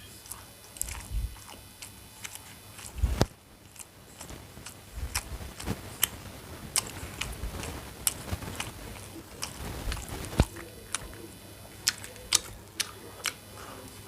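Close-miked eating: a person biting and chewing food, with irregular wet mouth clicks and smacks and a few heavier bites.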